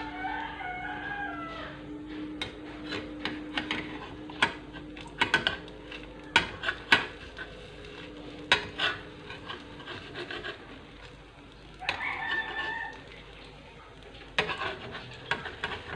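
A spatula clicks and scrapes against a non-stick frying pan, in quick clusters of sharp taps, while an omelette is worked and folded. A rooster crows in the background near the start and again about twelve seconds in.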